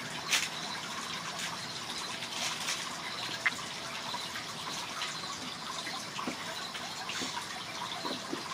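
Steady rushing background noise, like running water, with a couple of sharp clicks: one near the start and one about three and a half seconds in.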